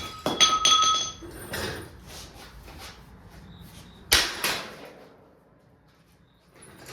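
Sledgehammer striking welded-on steel to break it loose: a ringing metallic clang just after the start, a lighter knock about a second later, and a heavier blow about four seconds in.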